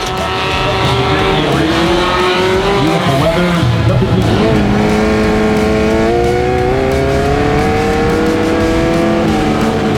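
Race vehicles' engines running and revving, their pitch climbing slowly as they pull away.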